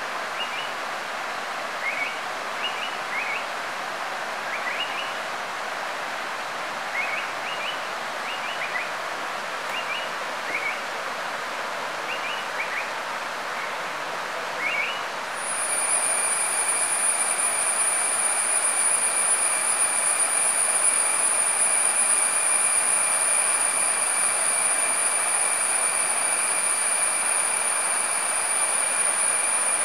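Steady rush of a forest stream with short bird chirps every second or so. About halfway in, a loud, steady high-pitched whine starts and keeps on unchanged.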